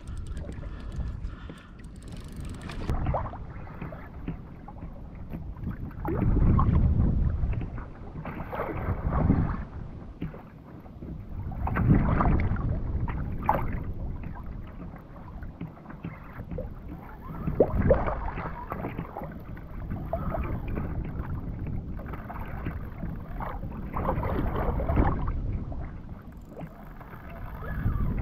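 Sea water sloshing and slapping against a plastic kayak hull in a swell, with wind on the microphone. The sound swells in irregular surges every few seconds.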